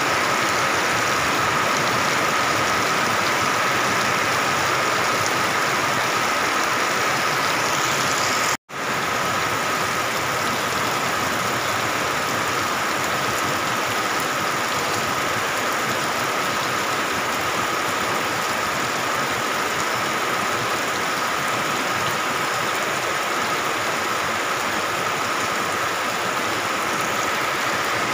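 Heavy rain pouring down in a dense, steady hiss. The sound drops out for a split second about a third of the way in, where the recording cuts.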